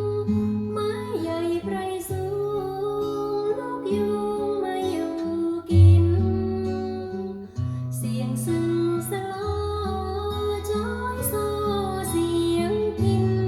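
Background music: a soft song with acoustic guitar, a sustained bass line and a melody that may be a woman singing.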